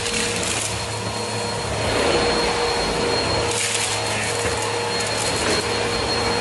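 Upright bagless vacuum cleaner running on a laminate wood floor: a steady motor whine over suction noise, with short surges of hiss as it is pushed over the dust.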